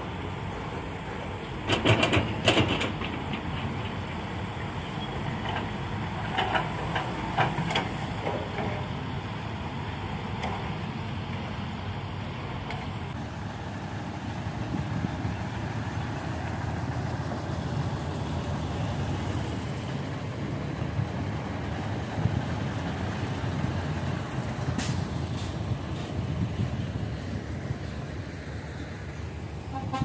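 Heavy diesel earthmoving machinery, an excavator and dump trucks, running with a steady low rumble. A burst of loud metallic clanks comes about two seconds in, with a few fainter knocks later.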